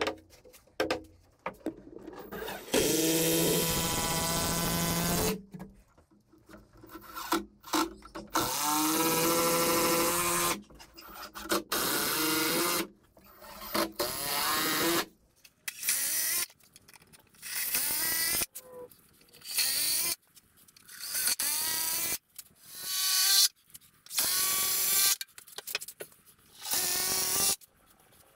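Cordless drill driving screws into pallet timber, in about a dozen short runs of a second or two. Each run starts with a rising whine as the motor spins up and stops abruptly.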